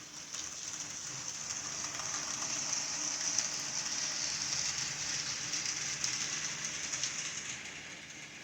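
HO scale model train, led by a ScaleTrains CSX ET44AC locomotive, running on its track: a steady high whir and rattle of wheels and motor that grows louder as the train passes close, then fades.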